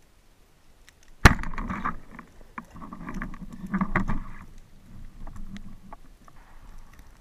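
Band-powered speargun fired underwater at a king mackerel: one sharp crack about a second in, followed by about three seconds of rattling and rumbling noise that dies down.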